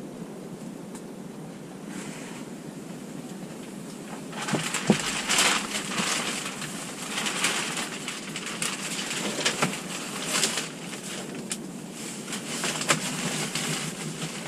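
Irregular crunching and rustling with occasional sharp knocks, starting about four seconds in over a steady low background hiss: handling and moving gear and stepping about in snow.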